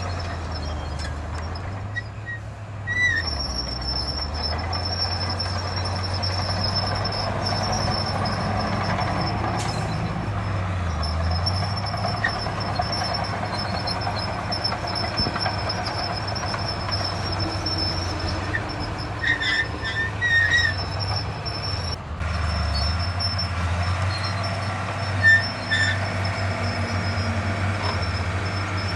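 Diesel engine of heavy earthmoving machinery running steadily, with a high steady whine over it and brief metallic squeaks a few times.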